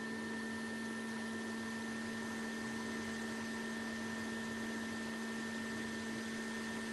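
Hot air rework station blowing steadily, a constant motor hum and whine over an airy hiss, as a chip on a MacBook logic board is heated for removal.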